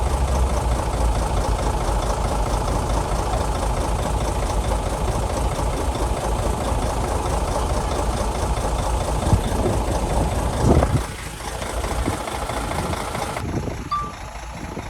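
Heavy diesel engine of earth-moving machinery running steadily with a deep rumble, with two short clanks late on. About eleven seconds in the engine sound drops sharply, and quieter engine noise carries on.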